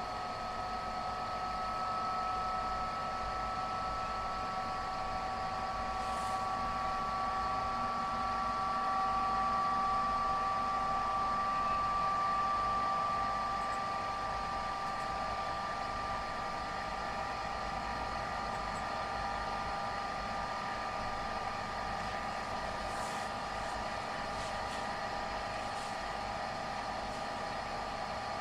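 Tesla V100 GPU under inference load: a steady rush of air with several high whining tones that drift slightly in pitch, swelling a little partway through. These are the strange noises that grow louder with heavier YOLO models.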